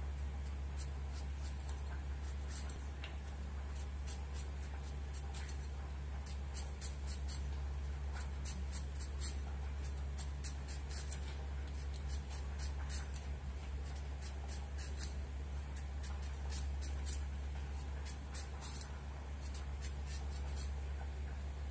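Raw green mango being peeled on the curved iron blade of a boti: repeated short scraping strokes as the blade shaves off strips of skin, over a steady low hum.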